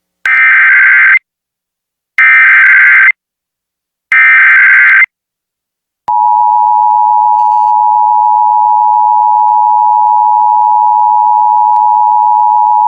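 Emergency Alert System tones: three one-second bursts of the SAME digital header, then, about six seconds in, the steady two-tone EAS attention signal, which holds. The sequence announces an incoming emergency alert, here a severe thunderstorm warning.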